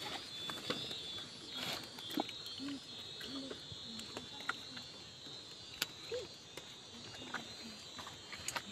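Scattered soft clicks and knocks of a mithun carcass being pulled apart and cut by hand, over a steady high insect drone, with a few faint voices.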